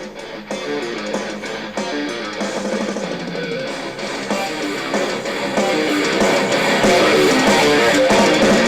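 Guitar music playing through an Antec AMP SP1 portable Bluetooth speaker as its volume is turned up, growing steadily louder and fuller in the bass towards full volume.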